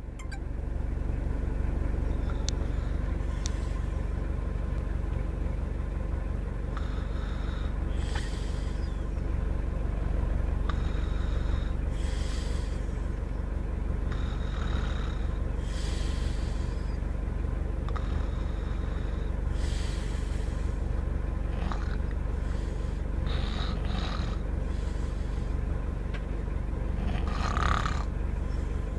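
A sleeping person snoring, one snoring breath about every four seconds, over a steady low hum.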